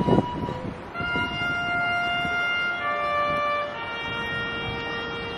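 Brass instrument playing a slow ceremonial melody of long held notes that step down in pitch, beginning about a second in, with a low thump at the very start.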